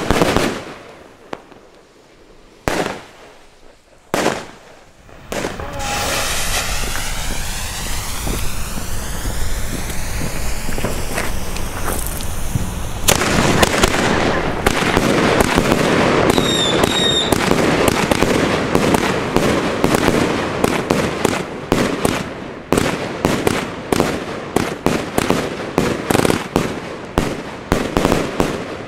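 Funke consumer fireworks going off: a few separate sharp bangs from aerial shells in the first seconds, then a long, loud hiss of a spark-shooting effect that turns into dense crackling. Near the end comes a fast run of sharp reports, about three a second, as in a battery cake firing.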